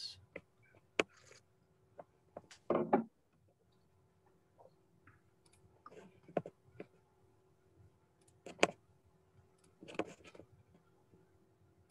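Sparse light clicks and taps of hands working at a computer desk, the loudest a short knock about three seconds in, over a faint steady hum.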